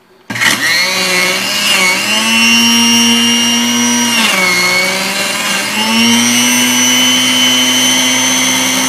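Black & Decker FusionBlade blender motor switched on, running with a steady whine. Its pitch rises about two seconds in, sags around four seconds, then climbs back and holds. The blade doesn't sound like it's turning, which the owner blames on plastic melted on the motor's spin nut.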